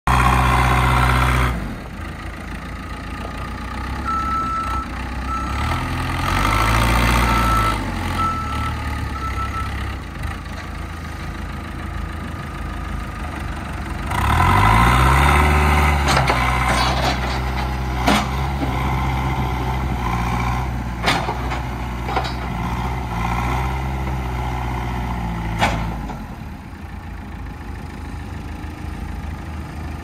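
2009 JCB 3CX backhoe loader's four-cylinder diesel engine running as the loader arms work the bucket, the engine revving up twice under hydraulic load and settling to a quieter idle near the end. A string of short beeps from a warning beeper sounds in the first third, and several sharp metal knocks come in the second half.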